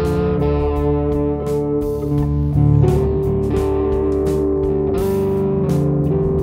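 Instrumental background music with held chords and a steady drum beat.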